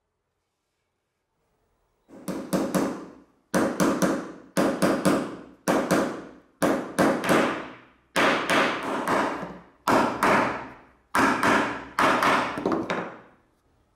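Small hammer tapping a sealed ball bearing into a hole in wood to press-fit it. It goes in clusters of a few quick taps about a second apart, starting about two seconds in.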